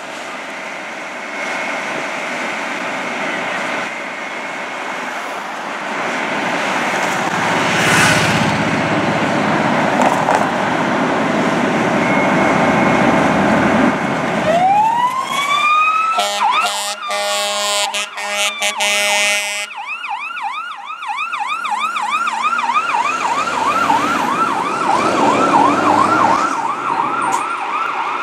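Fire engine responding: its engine runs as it pulls out, then about halfway through its siren winds up in a rising wail. A few seconds of loud horn follow, then the siren switches to a fast yelp, warbling about three times a second.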